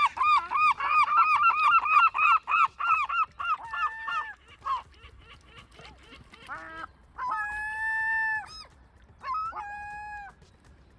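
Gulls calling: a fast run of short, yelping notes for about three and a half seconds, then a few scattered notes and two long, drawn-out calls near the end.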